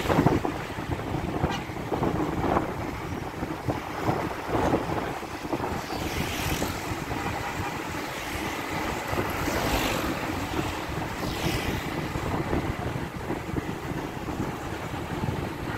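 Steady engine and road noise of a moving vehicle heard from on board, with wind buffeting the microphone. A few brief louder rushes come through about six, ten and eleven seconds in.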